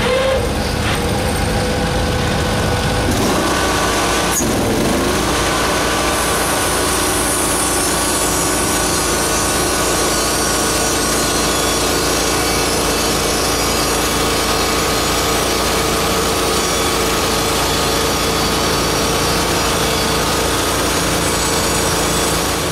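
Portable bandsaw sawmill running: its small petrol engine drives the band blade, whose pitch shifts briefly about four seconds in, then runs steadily with a high hiss of the blade cutting wood.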